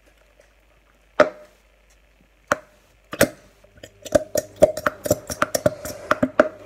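Aerosol foam can spraying into a glass measuring jug. After two single sharp clicks, from about three seconds in it sputters in quick irregular spurts over a steady hiss.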